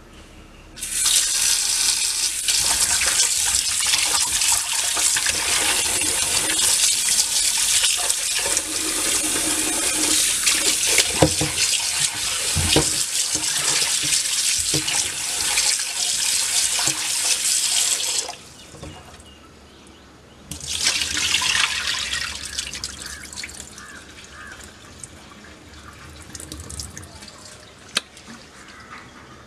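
Tap water running hard into a steel bowl of raw chicken pieces as a hand rubs and turns them in the water. The flow stops partway through, runs again briefly, then gives way to quieter splashing and handling.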